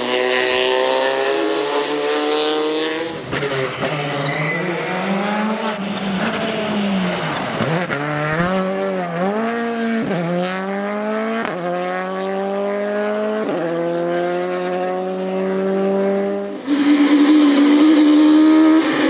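Rally car engine pulling hard through the gears, its pitch climbing and dropping back at each upshift, with a few quick lifts of the throttle in between. Near the end the sound cuts abruptly to a louder, steadier engine note.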